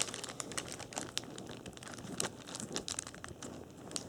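A 1994 Upper Deck Collector's Choice baseball card pack's wrapper being opened carefully by hand, crinkling, with scattered small crackles and tearing sounds.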